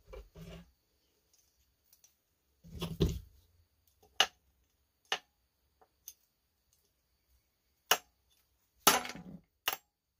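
Light hammer striking the nut on the end of a Husqvarna 240 chainsaw's crankshaft: six or so sharp metal knocks, irregularly spaced, some in quick pairs. The blows are meant to shock the stuck flywheel off its crankshaft taper without a puller.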